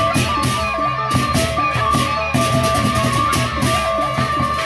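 Sasak gamelan ensemble playing baleganjur-style music: rapid crashing of hand cymbals over large barrel drums, with a row of small kettle gongs ringing out a repeating melody.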